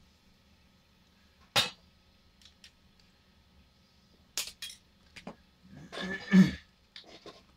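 Sharp clicks of diagonal cutters snipping and stripping the insulation off a wire, a few in a row, then a louder clatter as the cutters are set down on the bench.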